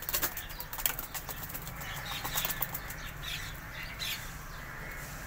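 Domestic pigeons flapping their wings, a clatter of wingbeats strongest in the first second, with a few faint high chirps in the middle.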